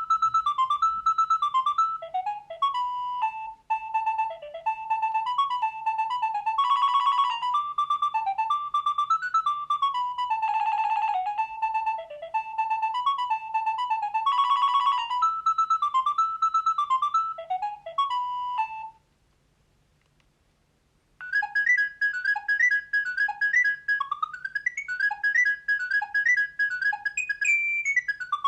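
Nokia 3200 mobile phone playing its built-in ringtones: an electronic melody of short notes that stops about two-thirds of the way in. After a two-second pause a second, higher-pitched ringtone tune begins.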